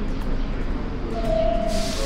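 New York City subway train rumbling in a station, with a steady whine coming in about a second in and a sudden hiss starting near the end.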